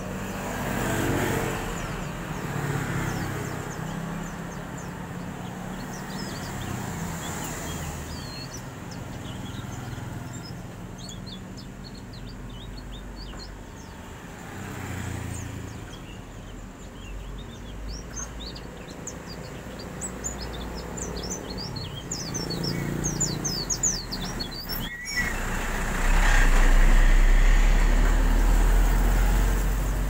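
Caged white-eye (pleci dakun) twittering in quick runs of short, high chirps, busiest in the middle stretch. Beneath it runs the rumble of passing vehicles, which swells loud near the end.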